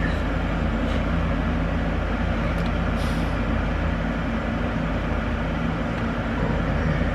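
Steady noise inside a car cabin: a low hum from the running engine under an even hiss.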